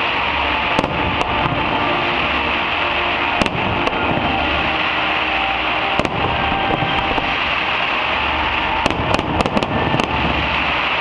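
Fireworks display: a continuous crackling din of bursting shells, pierced by sharp bangs throughout and a quick run of several bangs near the end.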